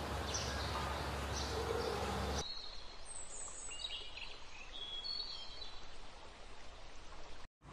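Outdoor nature ambience with small birds chirping. A steady hiss carries repeated short chirps for the first couple of seconds, then cuts suddenly to a quieter background with a few short whistled calls, and briefly drops out near the end.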